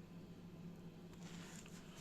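Near silence: room tone with a faint steady hum, and a faint rustle in the second half.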